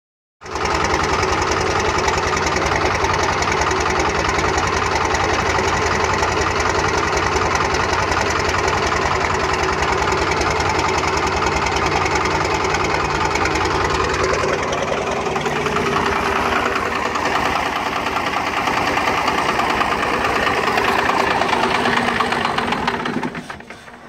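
Cummins 12-valve 5.9 L inline-six diesel idling, heard close at the tailpipe as a steady, fast pulsing exhaust note that drops in level near the end. The idle is rough with a miss that worsens once the engine is warm, which the owner suspects comes from an air leak in the fuel supply.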